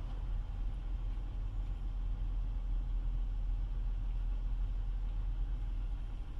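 Toyota Tacoma's 3.5-litre V6 idling, a steady low rumble heard from inside the cab.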